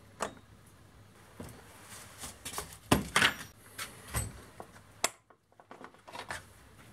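Knocks and clunks of a STIHL MS211C chainsaw's plastic body being handled and stood upright on a cardboard-covered bench. There are several sharp knocks, and the loudest come about three seconds in.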